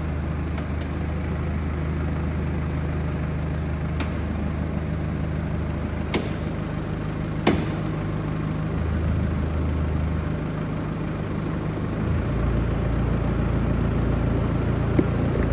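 BMW F30 320d's B47 four-cylinder diesel engine idling steadily, with a few sharp clicks about four, six and seven and a half seconds in. The low rumble grows heavier about twelve seconds in.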